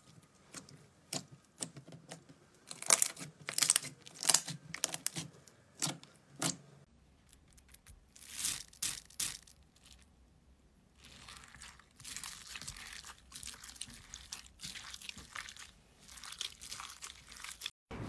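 Glossy slime being stretched and folded by hand, giving sharp sticky pops and clicks. Then a hand squeezes through foam beads mixed into clear slime, a denser crackling and crunching.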